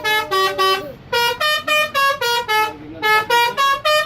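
Bus telolet horn, a multi-tone musical air horn, playing a quick melody of short stepped notes in three runs with brief pauses between them.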